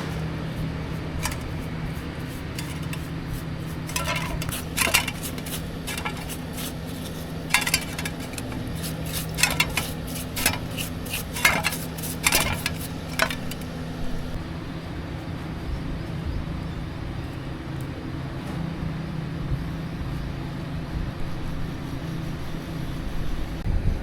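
Metal parts clinking and clattering against each other in a string of sharp knocks, over a steady low machine hum. The clinks stop about halfway through, leaving the hum alone.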